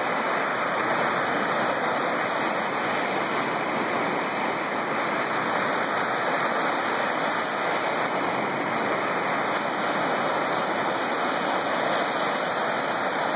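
Lake waves breaking and washing up a pebble beach: a steady rush of surf with no single crash standing out.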